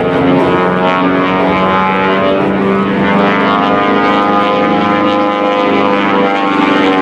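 The twin Pratt & Whitney R-985 nine-cylinder radial engines and propellers of a Beechcraft Model 18 (Twin Beech) running at high power in flight: a loud, steady drone whose pitch shifts slightly.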